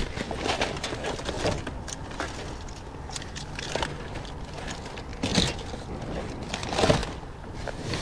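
Rummaging through trash in a dumpster: wire and plastic clothes hangers clattering against each other, with plastic and cardboard rustling and scraping. There are two louder knocks, about five and a half and seven seconds in.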